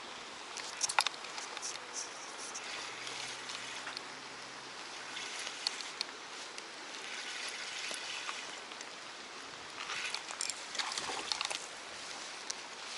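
Water trickling and sloshing over a steady outdoor hiss, with a few short splashy bursts and clicks about a second in and again near the end.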